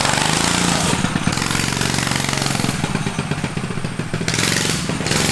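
Rascal Lite mini bike's small governed engine running while the bike is ridden, its speed rising and easing with the throttle.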